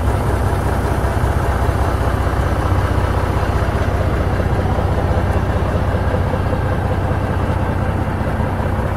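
An engine idling: a steady low rumble that holds even throughout.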